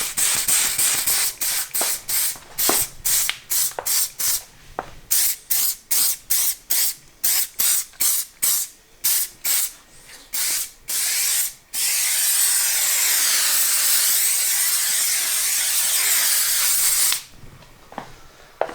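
Aerosol can of silicone shine spray hissing, first in a long run of short quick squirts, about two a second, then one continuous spray of about five seconds that cuts off sharply.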